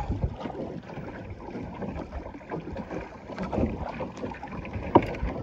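Choppy water slapping and sloshing against a kayak hull, with wind on the microphone and one sharper knock about five seconds in.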